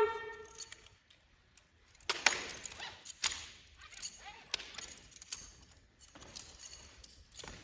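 Drill rifles being handled in a color guard's manual of arms: a series of sharp slaps and knocks, unevenly spaced a second or so apart, with faint rustling between them. The end of a long drawn-out drill command is heard at the very start.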